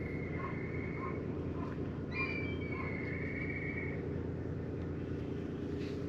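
Two long, high-pitched animal calls, each held for a second or two and falling slightly in pitch, with a few faint short chirps between them, over a steady low rumble.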